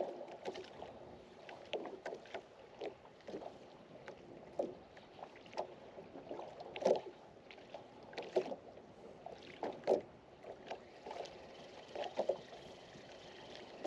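Small waves lapping and slapping irregularly against the hull of a small Gheenoe skiff, every second or so, over a steady background wash of water.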